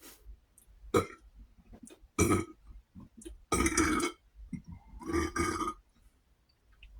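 A man burping after drinking cola: a string of separate burps, short ones first and two longer ones in the second half. They are not as clear, which he puts down to the fullness of food in his belly obstructing the sound.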